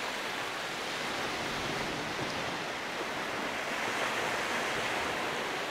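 Sea surf: small waves breaking and washing in, a steady rush with a slight swell about four seconds in.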